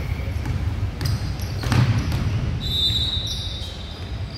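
A basketball being dribbled on a hardwood gym floor, with one loud thump about two seconds in. Short high squeaks from sneakers on the floor come in the second half.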